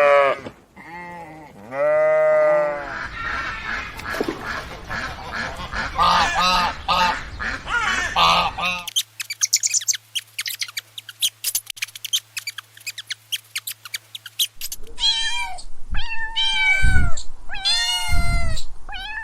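A run of different animal calls: two bleats near the start, then a string of short repeated chirping calls, then several seconds of rapid clicking, and a domestic cat meowing several times near the end.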